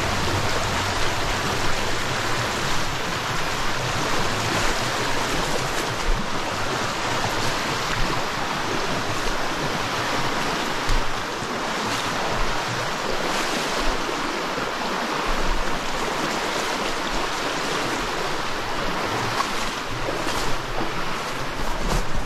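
Stream water rushing steadily, an even hiss, with occasional faint low thumps.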